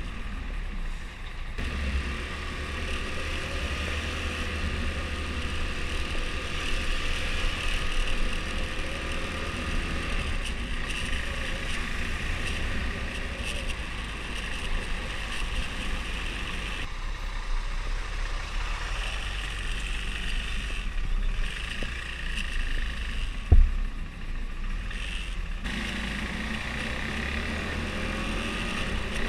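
Husqvarna Svartpilen 401's single-cylinder four-stroke engine running on its stock exhaust while riding, its note easing off for several seconds past the middle and picking up again near the end. A single sharp thump about twenty-three seconds in.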